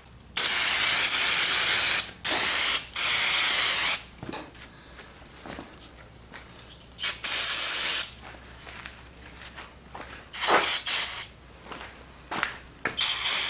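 Pressurised spray hissing in six short blasts, from about half a second to nearly two seconds each, with quiet gaps between them.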